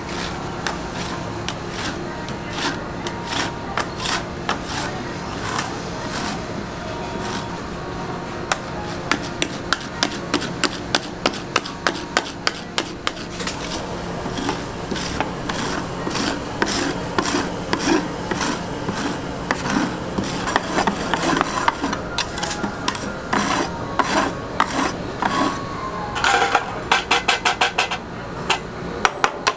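Steel spatulas scraping, rubbing and tapping on a metal ice cream roll cold plate as the frozen cream mixture is spread and smoothed into a thin, even sheet, with a quick run of rapid taps near the end. A faint steady hum runs underneath.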